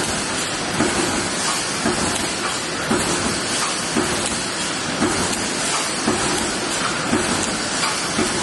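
CNC fence-mesh welding machine running: a steady hiss with a short knock about once a second as it cycles.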